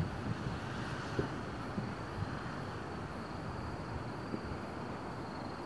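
Distant fireworks heard from far off: a few faint, muffled thumps over a steady low rumble.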